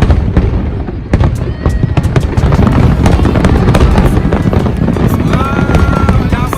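Fireworks display going off in rapid succession: a dense run of bangs and crackling with a deep rumble underneath.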